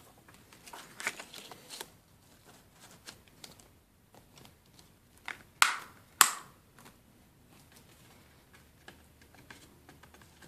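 Plastic Blu-ray case being handled, with small clicks and rustles, and two sharp snaps about half a second apart near the middle as the case is snapped shut.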